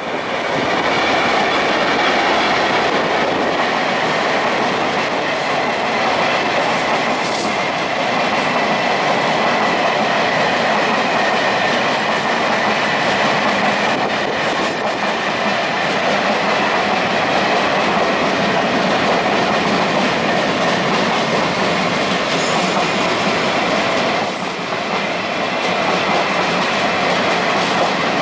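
A grain freight train led by an EMD G12 diesel-electric locomotive and made up of hopper wagons passes close by. It grows loud within the first second and then runs steadily, with wheels clicking over the rail joints and a faint wheel squeal.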